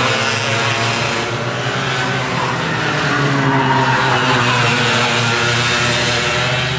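Go-kart engines running on a track, a loud, steady drone whose pitch rises and falls as the karts accelerate and ease off.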